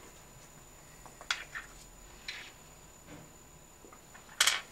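Small steel clutch-housing bolts being handled and set down on a tabletop while threadlocker is put on them: a few faint clicks and light taps, then one louder short clatter near the end.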